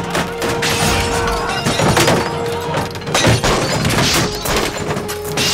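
Repeated thuds, crashes and shattering over background music, the sound effects of a violent smashing scene.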